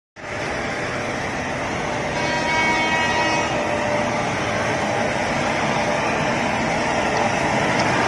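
Steady running noise of a railway coach passing through an automatic coach washing plant with rotating brushes. A brief high, multi-toned whine sounds from about two to three and a half seconds in.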